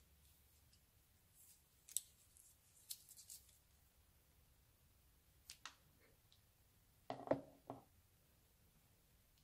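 Scissors snipping the tip of a plastic piping bag filled with slime: a quick cluster of sharp cuts about seven seconds in, after a few faint clicks of handling.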